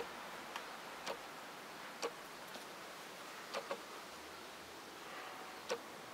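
Steady outdoor hiss with several short, sharp ticks at uneven intervals, two of them close together a little past the middle.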